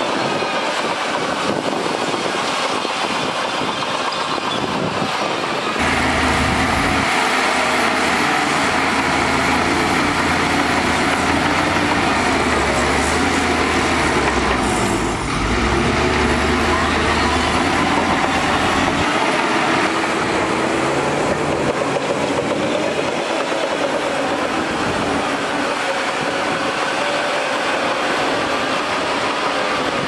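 Heavy diesel machinery running steadily: a tipper dump truck unloading dirt and a Shantui crawler bulldozer moving on its steel tracks pushing dirt. About six seconds in the sound gets abruptly louder and deeper, and it eases back again about twenty seconds in.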